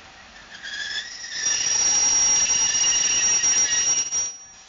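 Shrill metal-on-metal squeal from the wheels of a passing freight train of tank wagons, several high tones sounding at once. It builds about half a second in, is loud from about a second and a half in, and cuts off abruptly near the end.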